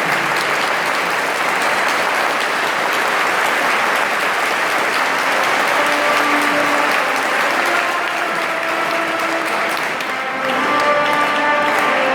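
A crowd applauding steadily. Instrumental music comes in under the clapping about ten seconds in.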